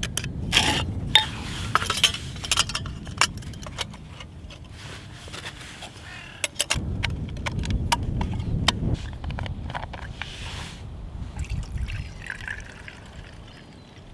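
Thin metal plates of a folding pocket stove clicking and clinking against each other as it is unfolded and fitted around a brass Trangia spirit burner, with many quick light metal clinks, thickest in the first few seconds.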